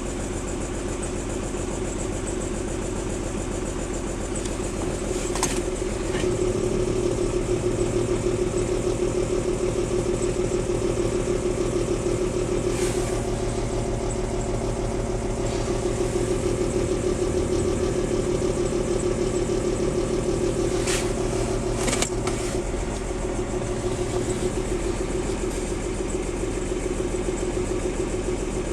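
BMW 325i E36's inline-six idling roughly after a cold start. Its level rises a little about six seconds in and eases again near the end, with a few brief clicks along the way.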